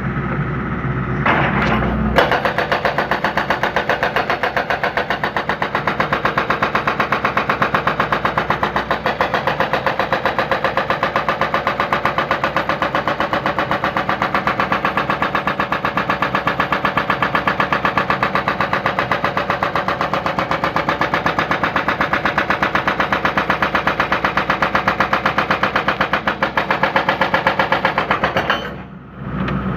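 Hydraulic breaker on a John Deere 160C excavator hammering a concrete foundation in a fast, steady run of blows over the running diesel engine. It starts about two seconds in and stops shortly before the end, leaving the engine running.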